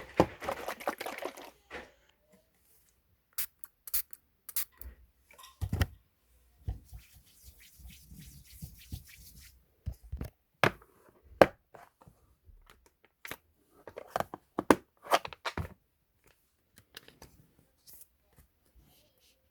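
Hands packing photocards: plastic packing material crinkling and rustling, with scattered sharp taps and clicks as the cards and sleeves are handled.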